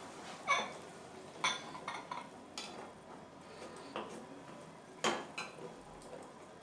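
A utensil scraping and clinking against a kadhai while tomato purée and onions are stirred as they fry, in several separate strokes with the loudest about five seconds in.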